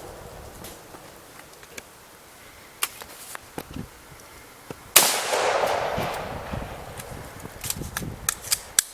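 A Tannerite charge explodes: one loud sudden blast about five seconds in, its noise fading away over about two seconds. A few sharp cracks come before it, and a quick cluster of smaller cracks near the end.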